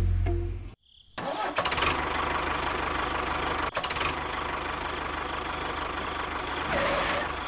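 A loud low drone cuts off under a second in. After a short gap, a motor starts and runs steadily with a rough, noisy hum over a low throb.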